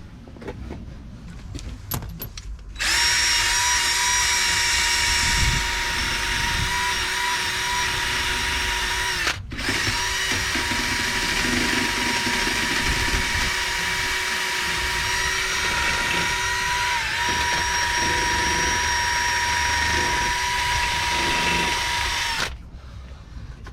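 Power drill cleaning up the face of a bare wheel hub, running at a steady high whine. It starts about three seconds in, stops for a moment near ten seconds, and runs on until near the end.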